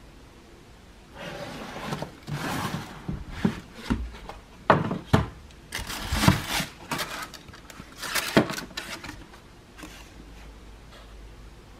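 Cardboard shoebox handled by gloved hands as the lid is opened and cardboard inserts are lifted out: rustling and scraping of card, with several sharp taps and knocks. It goes quieter for the last couple of seconds.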